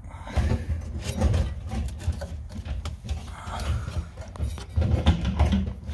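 Irregular knocks, clicks and clattering as a fuel pump hanger assembly is worked up out of a car's fuel tank: its metal plate, fittings and lines bumping against the tank opening, over a low rumble.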